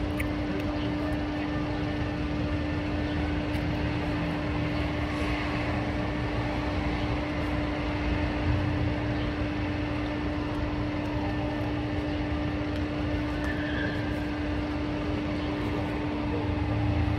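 A steady machine drone with a constant pitched hum and low rumble, unchanging throughout.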